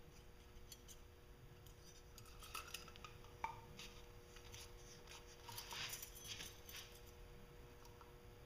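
Faint clinks and rattles of a metal worm-drive hose clamp handled along with a rubber coolant hose. There is one sharp click about three and a half seconds in and a busier spell of rattling around six seconds in.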